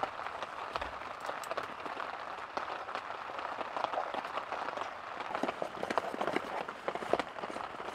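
Steady rain pattering, an even hiss dotted with many sharp drop ticks.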